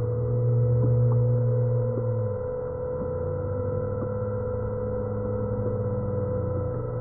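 Background music of slow, sustained droning tones, like an ambient pad or singing bowls, with the low note changing about two and a half seconds in.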